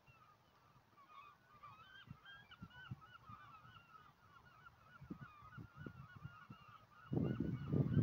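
A large flock of birds calling in flight: a constant chorus of many short, overlapping calls. About seven seconds in, a loud low rumble sets in over it.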